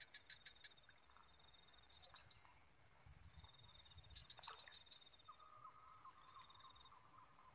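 Near silence with faint insects calling: a steady high buzz, an on-and-off high trill, and a second, lower steady insect tone that starts about five seconds in. A few small clicks come in the first second.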